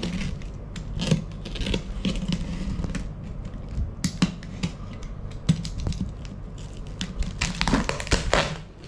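Snap-off utility knife slitting plastic stretch wrap on a box, with irregular scratching and crackling of the film. Near the end come a few longer ripping rasps as the wrap is pulled open by hand.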